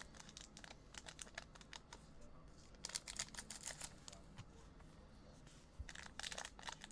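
Faint, scattered light clicks and taps, with denser flurries about three seconds in and near the end.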